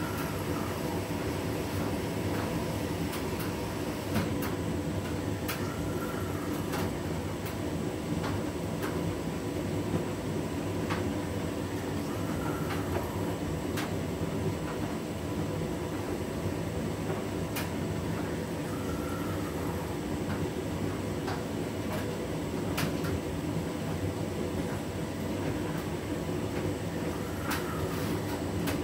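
Hotpoint front-loading washing machine in its wash cycle, its motor running steadily as the drum tumbles a wet load. About every six or seven seconds there is a faint rising-and-falling whine as the drum slows and turns the other way. Scattered light clicks and knocks come from the load against the drum.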